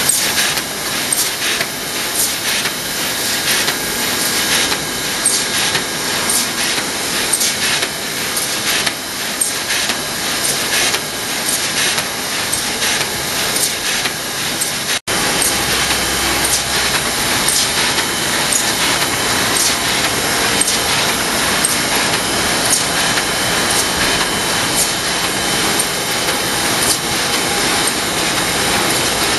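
TYM1050Y automatic flatbed foil-stamping press running: a steady mechanical clatter with dense, rapid clicking from its sheet feed and platen. It drops out for an instant about halfway.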